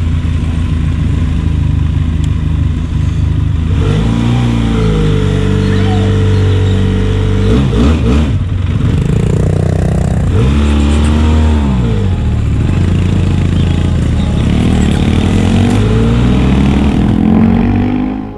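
Motorcycle engine running while riding, its pitch rising and falling as it accelerates and shifts gears.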